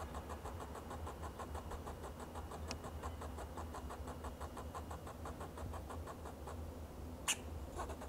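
Fox squirrel alarm calling: a fast, even series of faint calls that fades out after about six seconds, then a single sharp bark near the end, over a steady low rumble.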